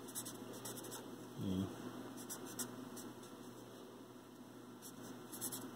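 Felt-tip Sharpie marker writing on paper: a few clusters of short, faint marker strokes as figures are written out. A brief hum of a voice comes about one and a half seconds in.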